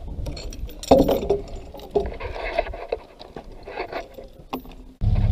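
Scattered knocks and clatter of a chain and hook being handled on a load of logs, over a low rumble. Near the end a loud, steady motor hum cuts in abruptly, from the truck crane's 12 V electric winch.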